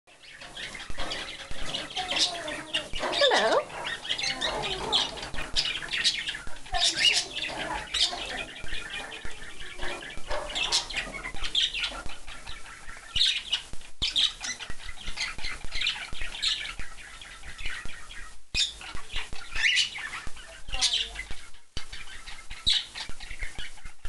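Pet cockatiels calling, a continuous run of sharp chirps and whistles, about one or two a second with some falling glides: the excited calling of birds wanting to be let out of the cage.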